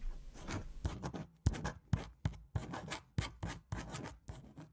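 Pen writing on paper: a quick series of short strokes, like a signature being written, stopping near the end.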